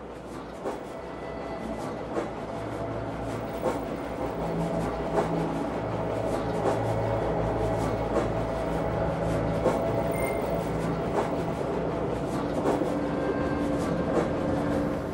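Wind buffeting a body-worn microphone during a walk, a steady rumble with a soft knock about every second and a half, cutting off suddenly at the end.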